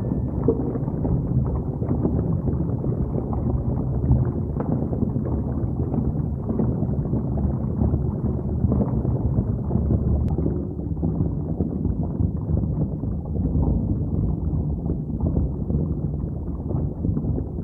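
Muffled underwater noise picked up by a camera held underwater while snorkeling: a steady, low rushing of moving water against the housing.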